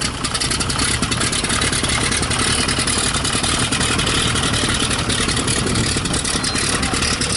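Vintage biplane's piston engine running steadily, its propeller turning, as the plane moves across the grass field.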